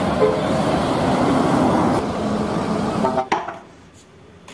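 Road traffic noise of a coach and cars driving on a city road: a steady rush of tyres and engines, with a brief horn-like tone just before it cuts off. It gives way to quiet room tone with a few faint clicks.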